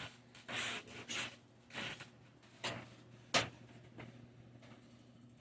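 Short bursts of rubbing and scraping, like things being handled, with one sharp click about three seconds in, over a steady low hum.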